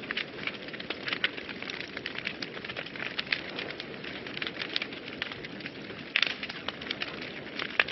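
Wood fire burning in a fireplace, crackling with frequent sharp pops over a steady soft rushing of flames; a cluster of louder pops comes about six seconds in.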